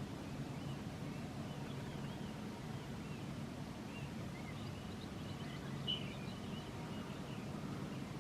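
A low, steady hum of unexplained source, the kind of mystery hum reported around Swansea, with faint bird chirps above it and one clearer chirp about six seconds in.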